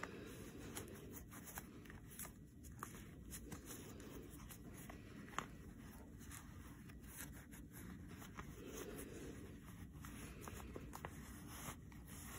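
Faint rustling and rubbing of a woven fabric bag and its lining being worked through the fingers as it is turned right side out, with scattered small clicks and one sharper tick about five seconds in.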